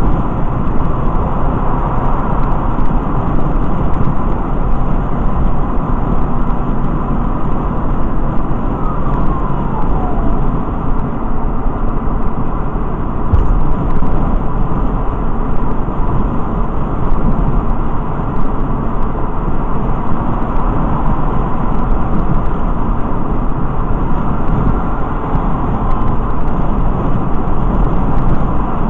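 Steady road noise of a car driving at freeway speed, heard from inside the cabin: an even low rumble of engine and tyres.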